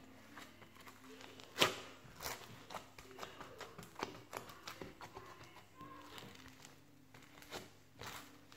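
Faint scattered clicks and taps of hands handling things close to the microphone, with one sharper click about a second and a half in.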